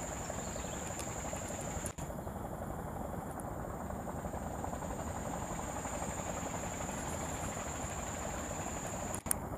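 Steady outdoor rumbling noise with a constant high-pitched insect drone above it, broken by two brief dropouts: one about two seconds in and one near the end.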